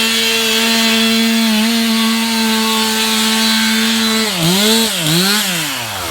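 Gas chainsaw running at full throttle, cutting up firewood, holding one steady high pitch. About four seconds in the revs drop and rise twice, then fall away toward idle.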